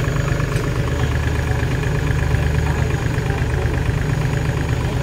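Kubota tractor's diesel engine idling steadily, with no revving.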